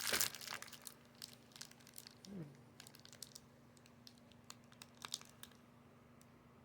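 Plastic packaging crinkling as it is handled: a burst of rustling at the start, then scattered light crackles.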